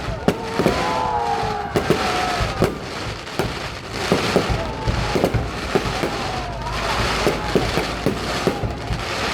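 Fireworks display: irregular sharp bangs, sometimes several a second, over continuous crackling.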